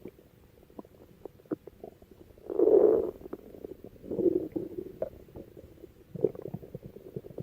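A person's stomach growling and gurgling in irregular low rumbles. The loudest comes about two and a half seconds in, with smaller ones around four and six seconds and little bubbling pops between.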